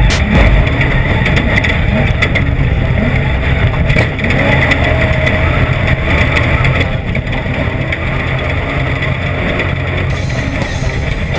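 Engine noise from off-road race vehicles, loud and steady.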